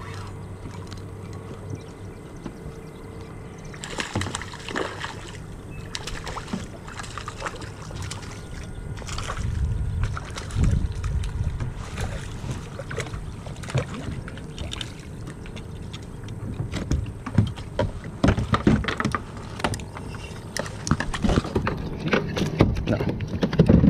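Irregular knocks, clicks and rattles against a plastic fishing kayak, with water sloshing, as a small redfish is reeled in and brought aboard. The knocking picks up from about four seconds in and gets heavier near the end.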